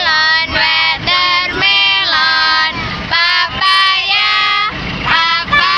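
Young children and women singing a children's song together in unison, in held notes that step up and down in pitch.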